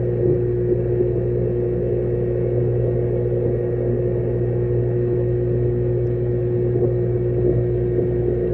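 Steady electric hum of a pump in the koi tank, heard through the water: a low drone with two higher steady tones above it.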